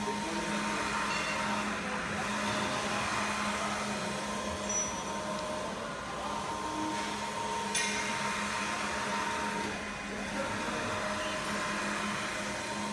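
Roll-to-roll UV textile printer with Ricoh GN5 printheads running. Its carriage sweeps back and forth with a hissing whir that drops out briefly about every four seconds as it turns, over a steady machine hum, with one sharp click about halfway through.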